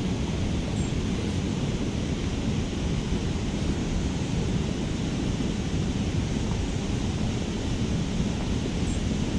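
Steady rushing wind noise buffeting the microphone, heaviest in the low end with a fainter hiss above, with no distinct events.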